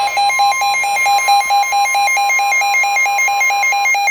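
NOAA Weather Radio warning alarm: a steady high tone of about 1050 Hz that stops near the end, sounding together with a fast two-pitch electronic beeping alarm, about five beeps a second, that keeps going. The alarm signals that a new severe thunderstorm warning is about to be broadcast.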